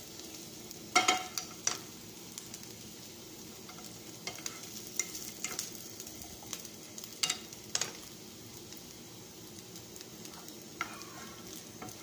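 Diced onion sizzling in hot oil in a frying pan, being sautéed toward golden brown. A wooden spatula stirs it, knocking and scraping against the pan now and then in sharp, irregular clicks, the loudest about a second in.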